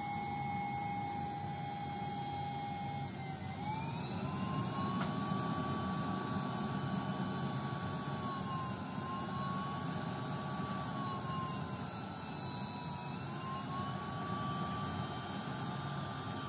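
Forge blower driving air into a coal fire: a steady rush of air under a whine that climbs in pitch about three seconds in, then sags and climbs back twice, as the fire flares and throws sparks.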